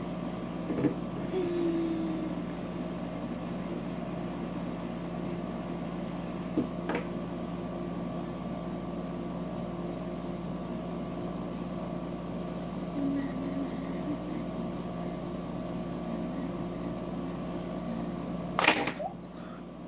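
Fidget spinner being flicked and spun by hand on a wooden table, with a few short clicks and a louder handling knock near the end, over a steady low hum.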